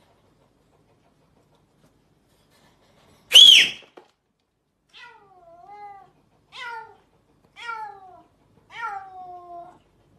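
A short, loud, shrill cry about three seconds in, followed by a cat meowing four times, each meow falling in pitch.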